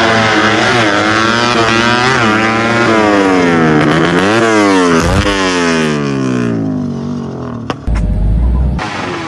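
Small drag-racing motorcycle engine revving hard at full throttle, its pitch climbing and dropping back four or five times as it shifts up through the gears, then falling away as the bike passes. A brief low rumble about eight seconds in.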